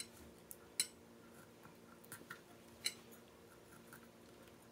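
A knife scoring deep cuts into a raw whole chicken in a glass baking dish: a handful of short, sharp clicks and taps, the two loudest about a second in and near three seconds, over a faint steady hum.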